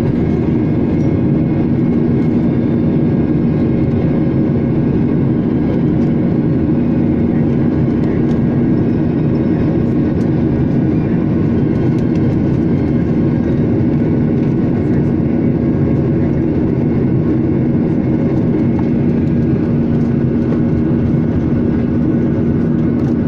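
Jet airliner's engines and rushing air heard inside the cabin while climbing out after take-off: a steady, loud drone with a low hum running through it.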